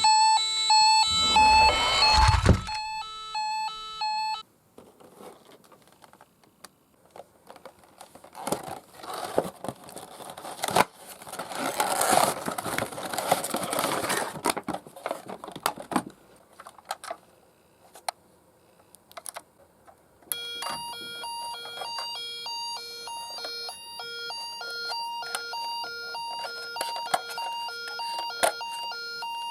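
Toy ambulance's electronic siren sound, a repeating pattern of short beeping tones, plays for the first few seconds and starts again about twenty seconds in. In between there is a stretch of rustling and scraping handling noise.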